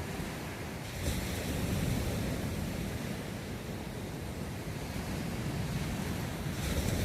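Atlantic Ocean surf breaking and washing up a beach: a steady roar of water that swells about a second in and again near the end, with a low wind rumble on the microphone.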